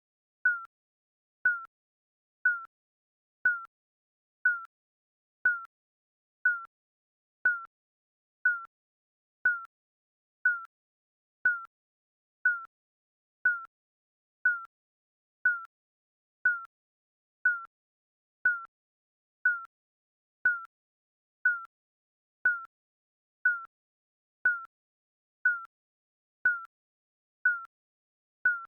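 Digital countdown timer beeping once a second: short, high blips, each dipping slightly in pitch and fading quickly.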